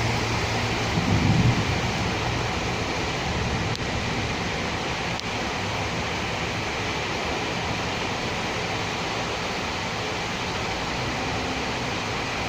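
Steady rain falling on a city street, an even hiss. A low rumble swells briefly about a second in, then the rain carries on alone.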